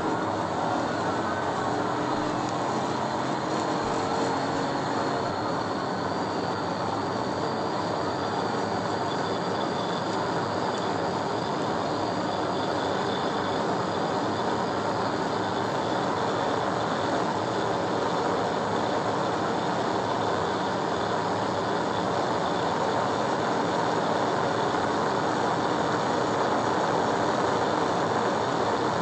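Steady wind, road and engine noise inside a police patrol car running flat out, growing slightly louder as it accelerates to about 140 mph. The car's siren wails faintly in the first few seconds.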